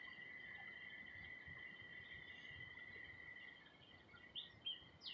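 Near silence: a faint steady high-pitched insect trill, with two brief chirps near the end.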